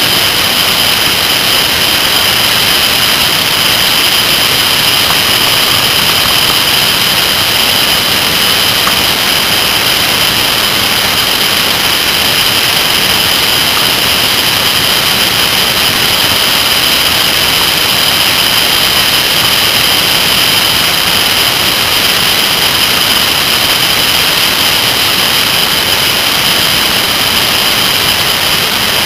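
A Kawasaki ZR-7S motorcycle running at a steady speed, heard mostly as loud, steady wind rush and road noise on the microphone over the engine. There is no revving or change of pace.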